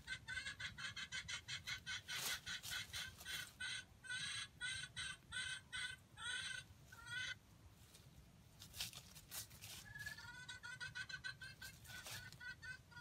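Wild junglefowl clucking in quick repeated calls, about two or three a second. There is a pause about 7 seconds in, then the calls start again. A few brief rustling noises sound among them.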